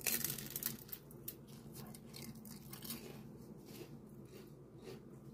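Close-up crunching of a bite into a fried spring roll: a dense run of crisp cracks in the first second, then quieter, scattered crunches as it is chewed.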